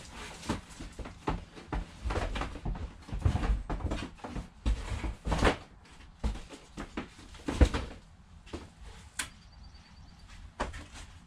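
Boxed goods being handled and set down: a busy run of knocks, scrapes and rustles, with the loudest thump about seven and a half seconds in and quieter handling near the end.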